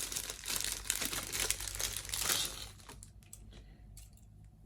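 Plastic packaging crinkling as it is handled and opened, dense for about two and a half seconds, then dying down to a few light clicks.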